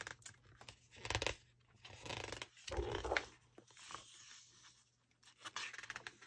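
Pages of a large hardback book being turned by hand: paper rustling and flapping in a few short bursts.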